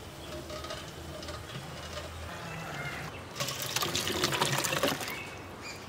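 Thick, sticky puli inji (tamarind-ginger curry) poured from a cooking pot into a steel pot, landing in a run of wet splashes for about a second and a half past the middle. Before that, a thin stream of ghee runs quietly into the empty steel pot.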